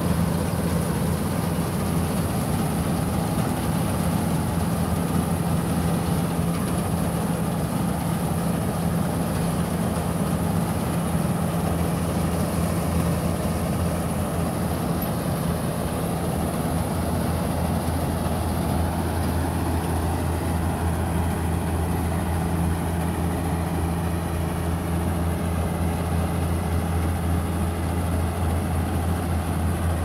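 New Holland combine harvester running steadily as it cuts and threshes wheat: a constant deep engine drone under a dense, even mechanical noise from the working machine.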